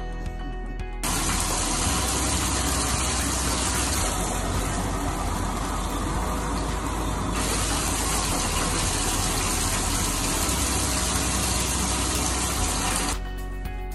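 Water gushing into a bathtub in a steady, loud stream, as from a tap running full while a dog is rinsed. It starts suddenly about a second in and cuts off suddenly shortly before the end.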